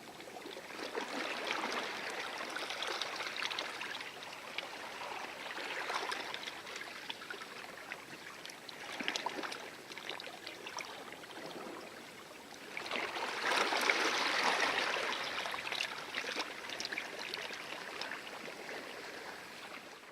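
Small waves lapping and washing over a coral shore, swelling and fading in repeated surges with fizzing, trickling splashes, the biggest wash a little past halfway.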